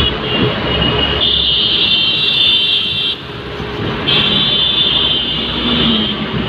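Road traffic noise heard from inside a car moving slowly in dense traffic, a steady rumble, with a high-pitched buzzing whine over it that stops for about a second midway and then returns.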